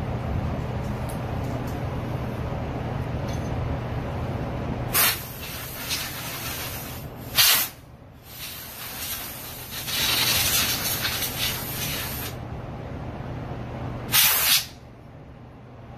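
Compressed air hissing from an air gun in four bursts, the longest about four seconds and two of them short blasts, over a steady low hum.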